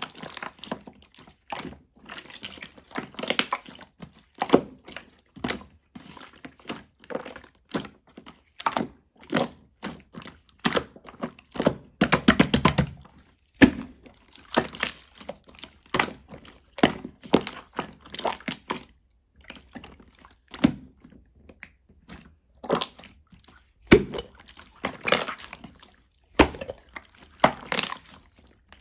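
Clear slime being kneaded and squeezed by hand as colouring is worked in: irregular sticky clicks, squelches and small air-bubble pops, with a quick run of crackles about twelve seconds in.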